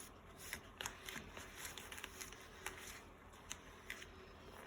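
A fork stirring a thick cornstarch and chocolate pudding mixture in a bowl: faint, irregular clicks and scrapes of the fork against the bowl.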